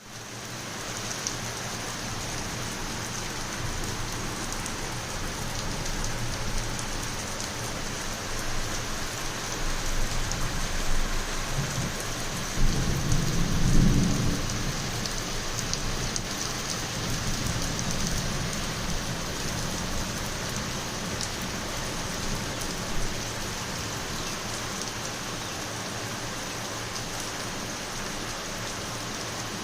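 Heavy rain pouring steadily in a continuous hiss, with a low rumble of thunder swelling and fading about halfway through.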